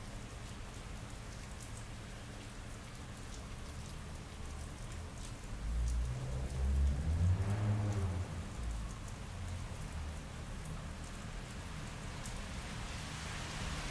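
Steady rain falling on wet pavement, with scattered drips. About six seconds in, a low rumble swells and fades over about three seconds.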